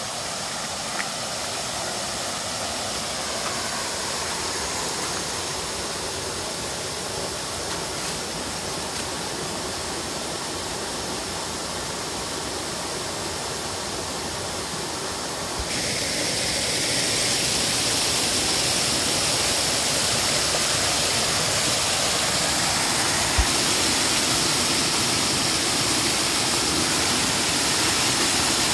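A small waterfall pouring over a rock ledge into a creek pool: a steady rushing splash of falling water. It becomes louder and brighter about halfway through, as the falls are heard up close.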